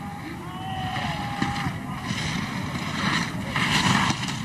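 Alpine ski racer's skis carving turns on a hard race piste: a steady scraping rush from the edges, surging with each turn about once a second or so. Faint wavering whistle-like tones sound over it in the first second and a half.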